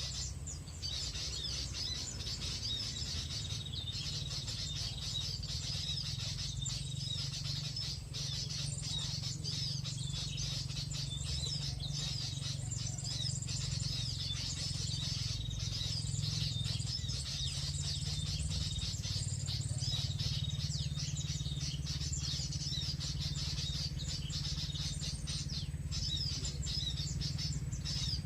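Small birds chirping rapidly and continuously in high, busy trills, over a steady low rumble.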